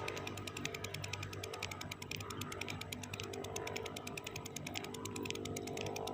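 Spinning fishing reel clicking rapidly and evenly, a fast mechanical ratcheting that runs without a break.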